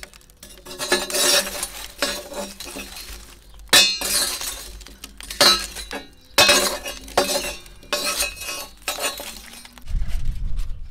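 Metal fire rake scraping across the floor of a wood-fired oven and pushing burning logs and embers, with charred wood and coals clinking and knocking together in a run of irregular sharp strikes.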